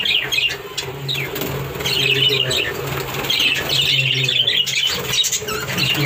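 Budgerigars chattering in quick bursts of high chirps and warbles, with wings fluttering.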